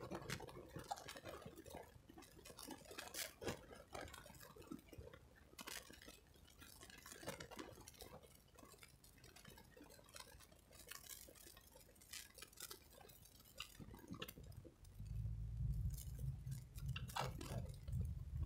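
Faint small clicks and taps inside a car. About fifteen seconds in, the low rumble of the car pulling away and driving rises and holds.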